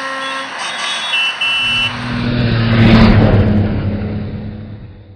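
Car horns honking in several steady tones for the first two seconds. Then a car engine swells up loud, passes and fades away, a comic near-miss car sound effect.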